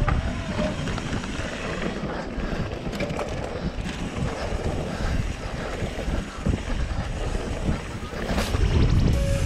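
Wind buffeting an action camera's microphone and mountain bike tyres rolling over a dirt trail at speed, a steady rushing noise with a deep rumble and a few scattered knocks and rattles from the bike over bumps.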